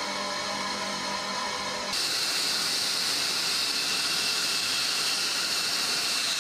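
Flight-line machinery noise: a steady multi-tone machine hum that cuts abruptly about two seconds in to a louder steady hiss with a high whine, the sound of a jet aircraft engine or its ground air supply running close by.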